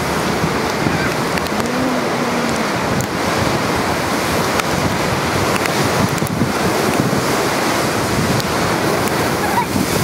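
Storm waves on Lake Ontario crashing against the breakwall and surging across the flooded promenade, driven by a strong onshore wind. Wind buffets the microphone throughout, making a loud, continuous rush with no pauses.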